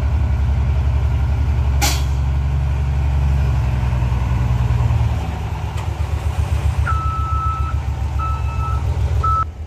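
Heavy diesel truck engine running with a steady low pulse, easing down about five seconds in. A short burst of hiss comes just before two seconds. From about seven seconds a reversing alarm beeps in tones of uneven length.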